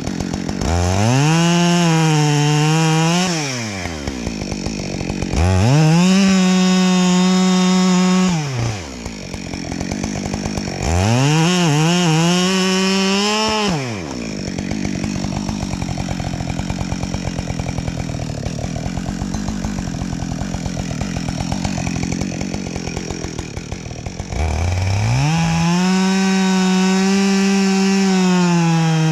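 Chainsaw revving to full throttle in four long cutting bursts of about three seconds or more each, its pitch climbing, holding high and falling back to a rough idle between them, with a long idle stretch in the middle. Felling a tree.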